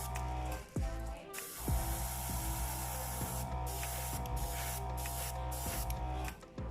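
Electronic dance music with a deep repeating kick drum, sustained synth chords and a bright hissing top, dropping out briefly about a second in and again near the end.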